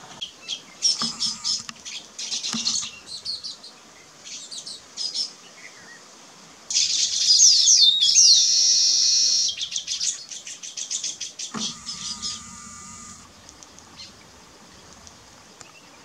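Baya weavers chirping and chattering in quick high-pitched runs, with a louder wheezy, buzzing stretch of song about seven seconds in that lasts a couple of seconds.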